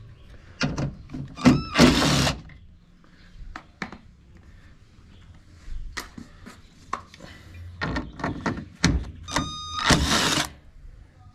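Power drill with a Torx bit running in short bursts as it unscrews the door latch mechanism's retaining screws on a car door. It whines briefly a little over a second in and again near the end, with clicks and knocks between.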